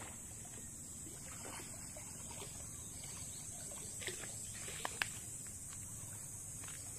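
Faint seaside outdoor ambience: a steady low rumble of wind and sea with a steady high hiss, and a few faint clicks about four to five seconds in.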